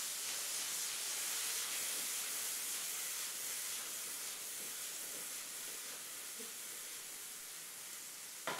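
Shrimp sautéing in melted butter in a frying pan: a steady sizzling hiss.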